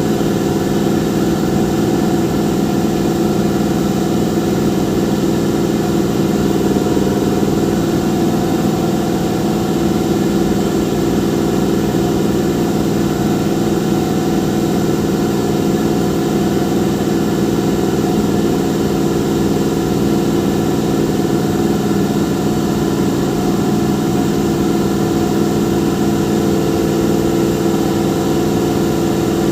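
Engine running steadily at idle, a constant hum with no change in speed.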